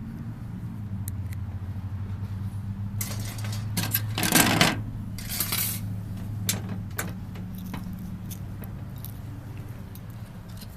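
Small metal parts of a power strip being taken apart by hand, clinking and rattling, with the loudest clatter about four seconds in, over a steady low hum.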